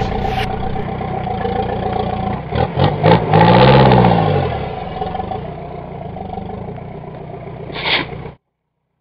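Off-road 4x4's engine running under load, revving up and back down once about three to four seconds in, then settling to a lower steady drone. A short rushing burst comes just before the sound cuts out abruptly near the end.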